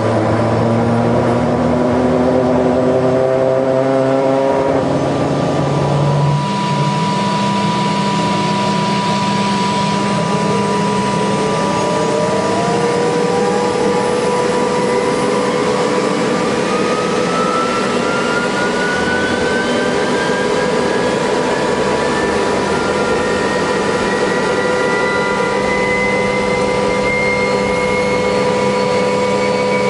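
MH-60S Seahawk helicopter's turbine engines running loud and steady with a high constant tone; from about twelve seconds in a whine climbs steadily in pitch to the end.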